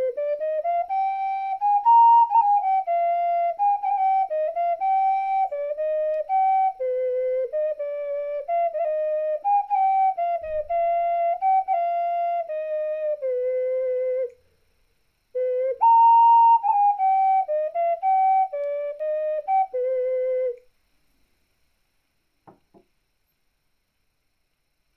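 Clay ocarina playing a slow melody of clear, held notes that step up and down. The playing pauses briefly about 14 seconds in, resumes, and stops about 21 seconds in, followed by a faint click.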